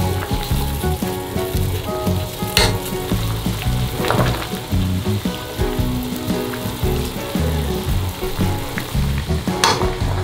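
Salted water boiling at a rolling bubble in a stainless steel pot as angelica tree shoots are stirred through it with metal tongs, with a few sharp metallic clinks.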